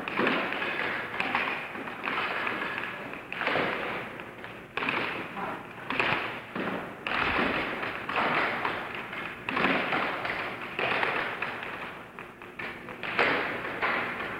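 Air hockey rally: mallets striking the puck and the puck knocking off the table's rails, a run of sharp hits at irregular spacing.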